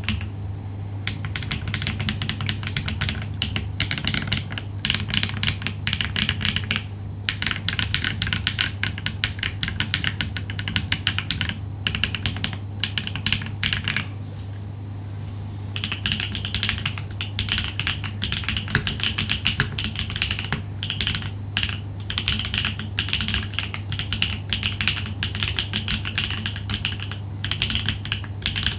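Typing on a Neo80 mechanical keyboard with HMX Ice Lotus tactile switches, a POM plate and no internal foam: fast runs of keystrokes with short pauses, the longest about fourteen seconds in. A steady low hum runs underneath.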